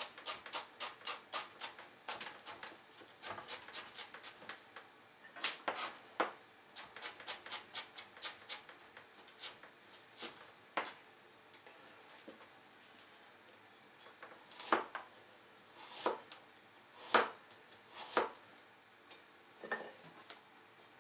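Chef's knife slicing carrot on a plastic cutting board: quick runs of tapping strokes, about five a second, then a short pause, then a few slower, louder strokes toward the end.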